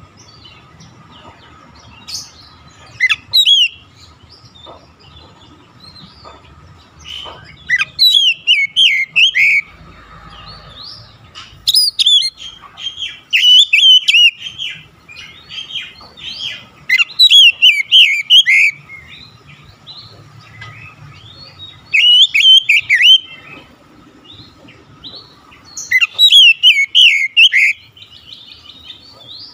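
Oriental magpie-robin singing in short bursts of loud, rapid whistled phrases with quick up-and-down notes, a burst every few seconds with pauses between.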